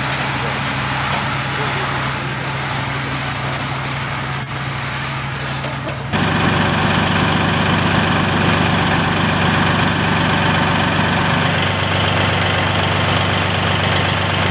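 Heavy military vehicle engines idling: a steady low engine hum, then about six seconds in a sudden change to a louder engine running with a fast, even low pulse.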